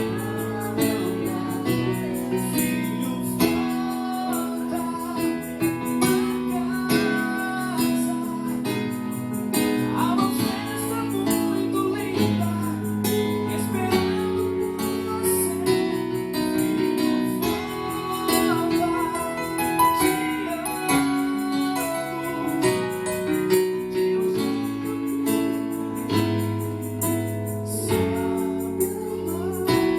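Live gospel band playing: sustained keyboard chords over electric bass, with a cajón and a pandeirola (jingle tambourine) keeping a steady beat.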